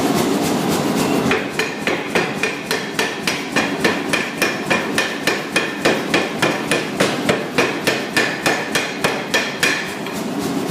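Rapid, even hammer blows on a 60 mm round steel bar being forged, about three a second, each with a short metallic ring. They begin about a second in and stop shortly before the end, with a steady rushing noise before and after them.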